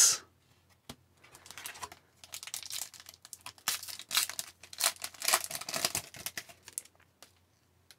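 Wrapper of a trading card pack being torn open and crinkled, a run of crackling that stops about seven seconds in.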